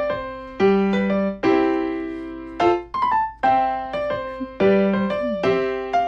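Background piano music: a gentle melody of single notes and chords, each struck and then fading.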